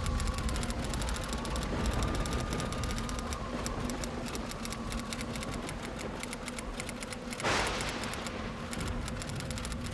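Rapid, continuous typewriter clicking, a sound effect keeping time with caption text being typed out, over a faint steady hum. In the first few seconds a thin whistling tone slides down and then up. About three-quarters of the way through comes a short rushing noise.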